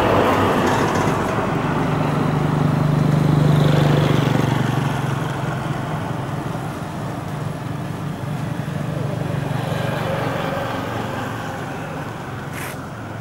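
Motor vehicle engine passing by: a steady low hum that swells about three to four seconds in and then slowly fades away.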